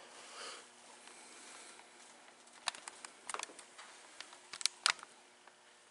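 Quiet room tone with a faint steady hum, and a scattering of light, sharp clicks and taps in the second half.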